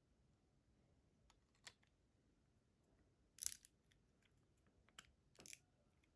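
Sharp plastic clicks and rattles of a Lego AR-15 model being handled, a few single clicks with the loudest, a quick cluster, about halfway through.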